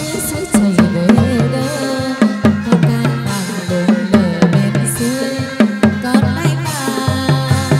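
Chầu văn ritual music: a quick plucked-string melody over steady drum and clapper strokes, with a few brief bright crashes.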